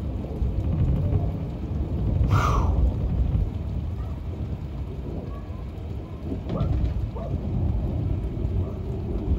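Steady rain falling, with a low rumble of thunder that swells and rolls for the first few seconds before easing. A brief hiss comes about two and a half seconds in.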